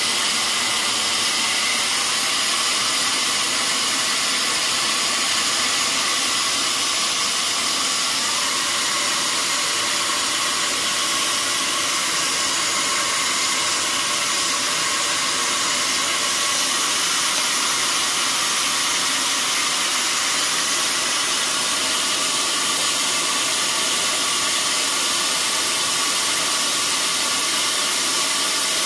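A blower motor running with a steady, even hiss.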